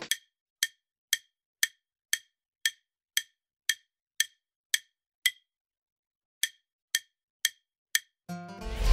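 Quiz countdown-timer sound effect: short wooden ticks about two a second, with a pause of about a second past the middle, then a louder rushing sound effect near the end as the timer runs out.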